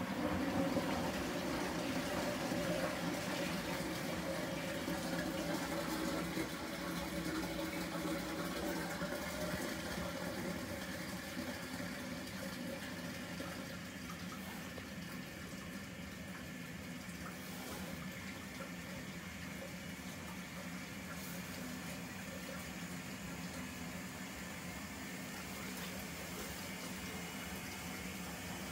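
Nortec Primus P6 commercial washing machine running with water rushing in as it fills for the wash. The sound is louder for the first ten seconds or so, then settles to a steadier, slightly quieter flow.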